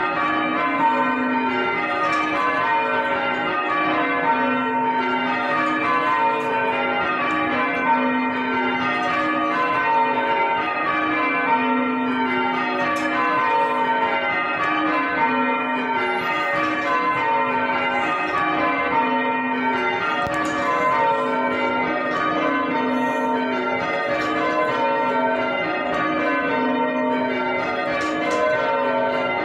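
A ring of six church bells rung by ropes from the ringing chamber, the bells striking one after another in repeating downward runs, roughly one run every two seconds, their tones overlapping and ringing on.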